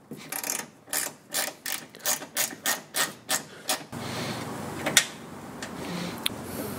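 Small ratchet wrench clicking at about five clicks a second as a 10 mm bolt is turned. The clicking stops about four seconds in, leaving a steady hiss with a couple of single light clicks.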